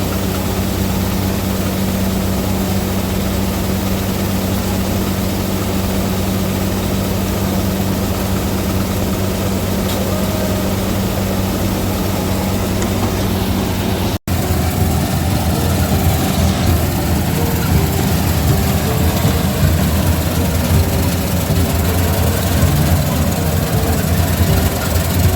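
John Deere 5050D tractor's diesel engine running at a steady speed. About fourteen seconds in the sound cuts out for an instant and resumes as a heavier, rougher machine noise with a faint repeating ticking.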